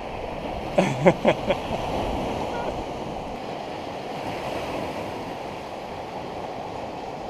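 Steady wash of small waves on a sandy beach.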